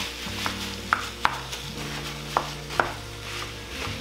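A wooden spoon breaking up and stirring raw 80/20 ground chuck in a nonstick skillet: squishing and scraping, with several sharp, irregular knocks of the spoon against the pan over a faint sizzle as the meat starts to brown.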